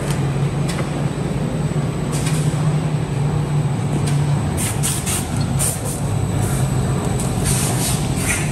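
Corrugated-carton rotary die-cutting machine running steadily, a constant low hum under a rush of mechanical noise. It is punctuated by short, hissing, rustling bursts, several of them in the second half, as cardboard sheets pass through the cutting rollers.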